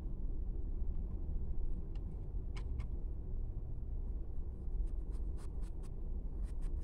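Steady low hum, with faint scratches and a few light ticks from a paintbrush working red paint onto canvas fabric.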